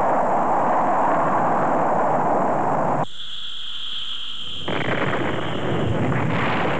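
Steady rush of a missile's rocket exhaust that cuts off suddenly about three seconds in. A high steady whine follows, then the deep rumble of a nuclear explosion builds and grows louder.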